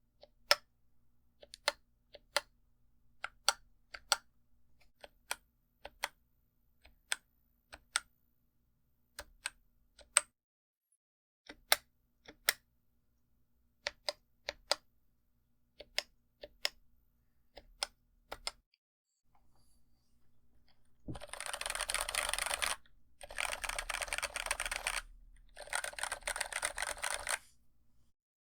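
Mechanical keyboard with TTC Bluish White tactile switches, muted at the bottom-out: slow single keystrokes, each a quick press-and-release click pair, then after a short pause fast continuous typing in three bursts.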